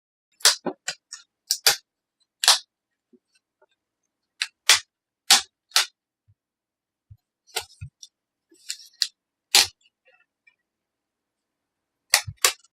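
Plastic screen bezel of an Acer Aspire One netbook being pried off, its clips snapping loose in a series of sharp, irregular clicks and cracks.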